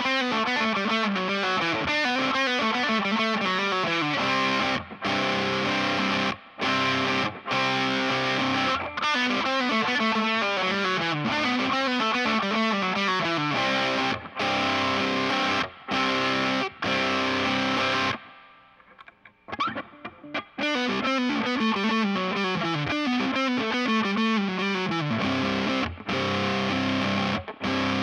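Electric guitar with Seymour Duncan Antiquity pickups played through overdrive, its stock pickup pairing (bridge in the bridge, neck in the neck). It plays a repeated phrase of falling note runs, with a brief pause about two-thirds of the way through.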